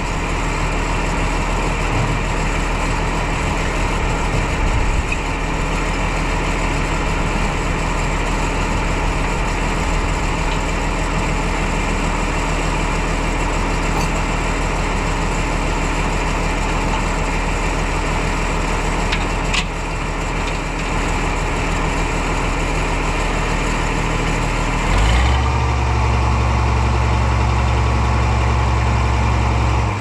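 Oliver 1650 tractor's six-cylinder diesel engine idling steadily, soon after a cold start. About 25 seconds in, its low rumble grows louder.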